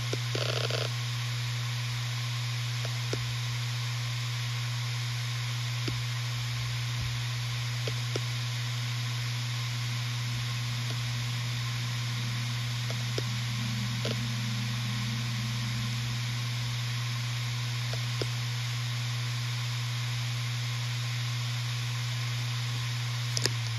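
Western Digital RE 4 TB 7200 rpm hard drive spinning steadily: a constant low hum under a faint hiss, with a few faint ticks here and there and a sharper click just before the end.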